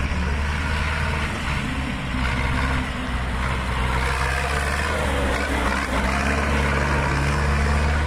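Zetor tractor's diesel engine running steadily under load as the tractor drives over rough ground, getting a little louder near the end as it heads up a dirt mound.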